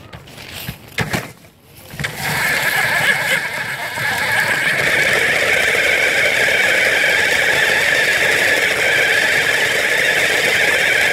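Battery-powered ride-on toy car driving, its electric motor and gearbox giving a steady whine with its wheels rolling on the ground. It starts up about two seconds in, after a few knocks.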